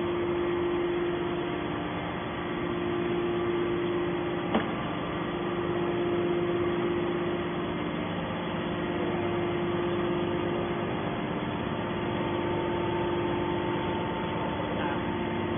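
Hydraulic scrap-metal baler running with a steady mechanical hum and a clear constant tone, with one sharp click about four and a half seconds in.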